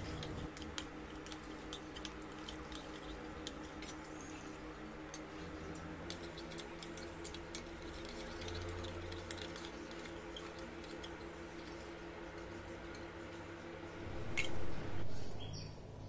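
Metal spoon stirring in a small stainless-steel bowl, with light repeated scraping and clinking against the steel, and two louder thuds near the end.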